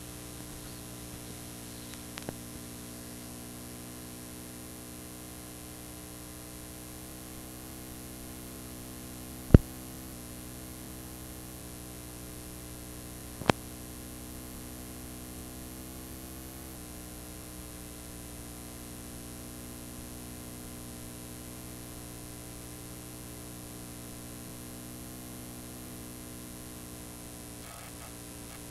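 Steady electrical mains hum with a stack of overtones under static hiss, the noise of a blank recording playing with no programme on it. Two sharp clicks break it, about ten and fourteen seconds in.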